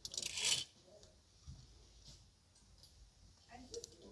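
Clear plastic clip hangers sliding and scraping along a clothing rack as hanging trousers are pushed aside, with one loud scrape lasting about half a second at the start. A few light clicks of hangers knocking together follow.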